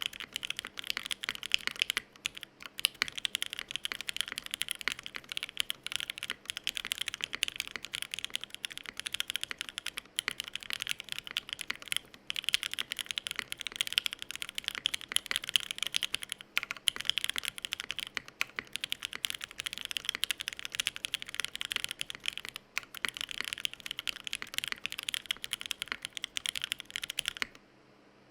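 Fast, continuous typing on a mechanical keyboard: a UTD 360C with an aluminium plate on a gummy-worm mount and lubed, filmed C3 Tangerine V2 linear switches. The keystrokes come as a dense run of bright clacks with a few short pauses, and the typing stops shortly before the end.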